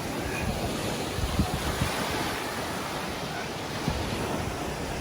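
Sea surf washing steadily onto the beach, with wind buffeting the microphone in low gusts.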